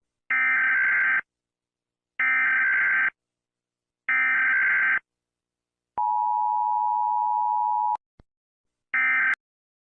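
Emergency Alert System tones: three buzzy digital data bursts of about a second each, then a steady two-tone attention signal for two seconds. A faint click and one more short data burst follow near the end.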